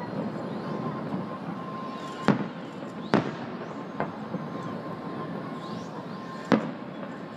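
Aerial firework shells bursting: four sharp bangs a second or more apart, about two, three, four and six and a half seconds in, the fourth weaker than the others, over a steady background noise.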